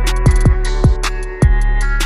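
Background music: an emo trap instrumental beat with plucked guitar notes over a deep bass, kick drums and fast hi-hat rolls.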